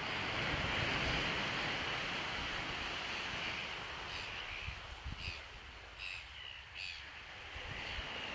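Surf washing onto a beach in a steady rush that eases a little past the middle, while a bird gives about four short calls in the second half.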